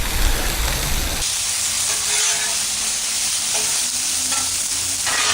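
Chicken breast pieces sizzling on a hot Blackstone flat-top griddle. About a second in, the sizzle turns to a brighter, higher hiss.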